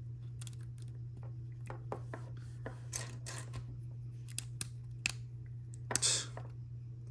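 Plastic LEGO pieces clicking and clattering as they are handled and pressed onto studs: a scatter of small sharp clicks, a longer rustling scrape about six seconds in, and a steady low hum.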